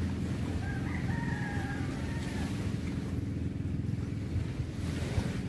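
A rooster crows once, about a second in, over a steady low rumble of wind and surf.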